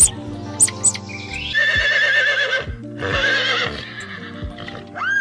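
Horse whinnying twice, each call a trembling, wavering neigh, the first starting with a rising glide, over background music. A few sharp clicks come just before the first whinny.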